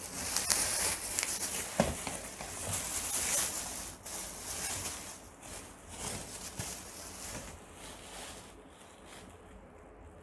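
Thin plastic wrapping rustling and crinkling as it is pulled off a fan's wire guard, with a sharp click about two seconds in. The rustling dies down over the last couple of seconds.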